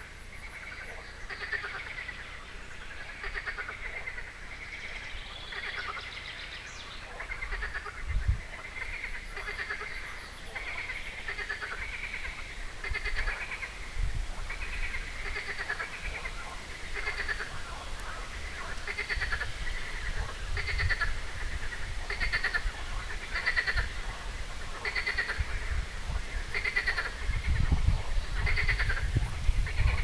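A chorus of frogs croaking, short rattling calls overlapping and repeating about once a second. A low rumble comes in near the end.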